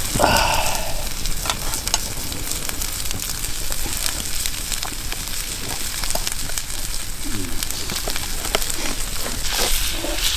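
Food sizzling and frying in a pan over a campfire, a steady hiss with many small crackles and pops.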